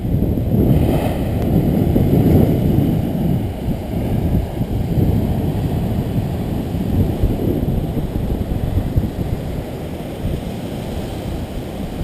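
Wind buffeting the camera's microphone in a loud, gusty rumble, strongest in the first few seconds, over the wash of big surf breaking on the rocks below.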